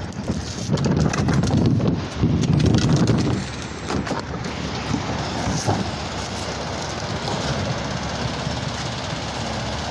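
Wind buffeting the phone's microphone in two loud low gusts over the first few seconds, then the steady engine rumble of an automated side-loader garbage truck running.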